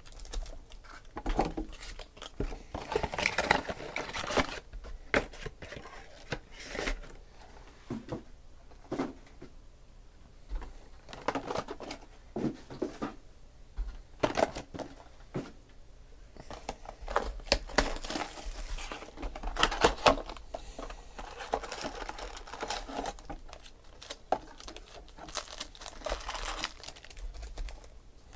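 Foil-wrapped Panini Select football card packs crinkling and tapping as they are handled, shuffled and stacked on a table: irregular rustles and light clicks, busiest in a few clusters.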